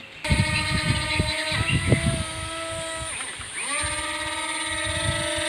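Small DC pencil motor spinning the propeller of a homemade RC air boat, a steady whine that drops in pitch about three seconds in and then rises back. Irregular low thumps sound underneath.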